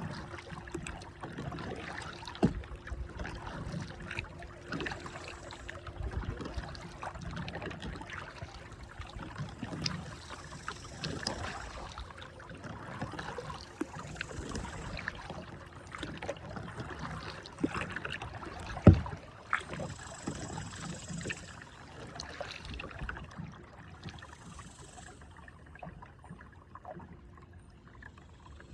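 Kayak paddling: paddle strokes swishing and splashing through the water, with a couple of sharp knocks, likely the paddle striking the kayak hull.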